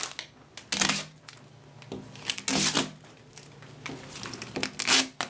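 Close handling sounds: a few short bursts of rustling and crinkling, with small knocks and clicks between them.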